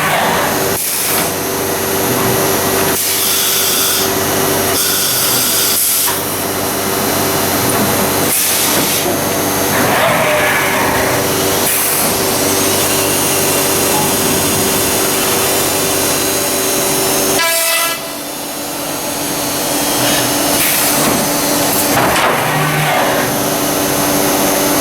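1997 Biesse Rover 322 CNC machining centre running: a loud, steady hiss over a steady hum, its texture shifting every few seconds as it works. The noise drops suddenly about three-quarters of the way through, then builds back up.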